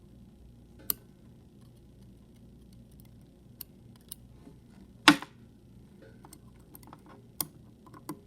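Scattered small metal clicks and taps of tools on the parts of a disassembled Yale Superior euro cylinder lock as a stuck slider is worked at. The loudest is a sharper knock about five seconds in.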